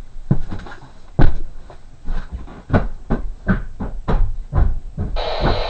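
Heavy footsteps thudding away at about two a second. About five seconds in, a steady rushing noise starts suddenly.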